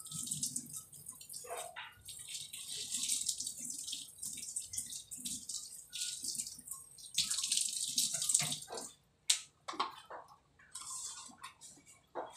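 Water splashing and pouring in uneven spurts that stop and start, with a few sharp knocks in the last few seconds.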